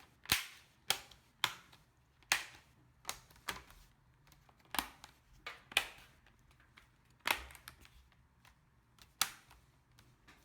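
Plastic screen bezel of a Lenovo ThinkPad T520i laptop being pressed back on, its clips snapping into place: about ten sharp, separate snaps at irregular intervals.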